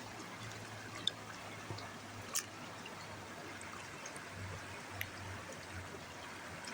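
Steady faint trickling of water, with three small clicks.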